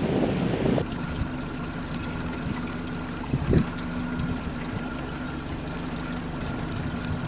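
Boat motor running steadily, a low hum with a fainter higher whine, after wind buffeting the microphone for the first second. A short thump about three and a half seconds in.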